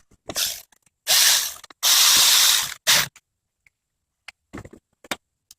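Ratchet wrench worked in three bursts of rasping, tightening bolts, followed by a few light clicks of tools.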